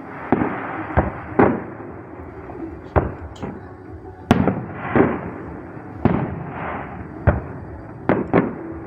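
Aerial fireworks display going off: about a dozen sharp bangs at irregular intervals, some in quick pairs, over a continuous noisy wash.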